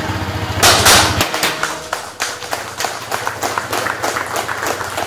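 A confetti popper goes off with a loud burst about half a second in, over the freshly assembled Yamaha R15 V2's single-cylinder engine idling, followed by scattered clapping.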